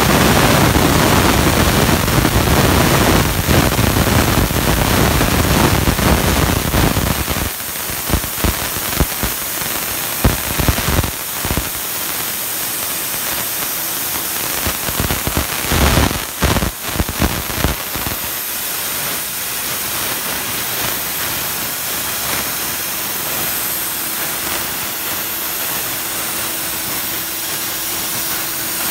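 CNC plasma torch cutting 3/8-inch steel plate: a loud, steady hiss with crackling. It is fuller and louder for the first seven or so seconds, then thinner and crackly for about ten seconds, then a steadier hiss.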